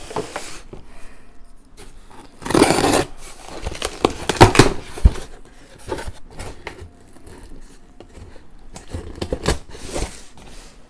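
Cardboard shipping box being cut and opened by hand with a small knife: a half-second rip of the blade through the tape about two seconds in, then sharp knocks, scrapes and rustling as the cardboard flaps are worked open.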